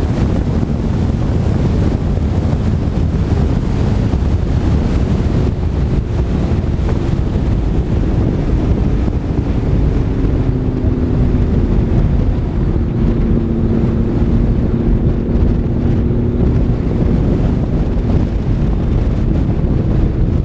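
Heavy wind rumble buffeting a GoPro mounted on a McLaren 12C at track speed. The car's twin-turbo V8 is faintly audible beneath it as low tones that shift in pitch and dip about halfway through.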